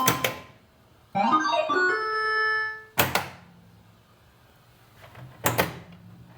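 Bally Paragon pinball machine in play: electronic tone effects from its repaired AS-2518-50 sound board, a chime-like tone that rises and then holds for about a second and a half, mixed with sharp mechanical thunks at the start, about three seconds in and near the end, over a low hum. The owner finds the sounds a bit weird.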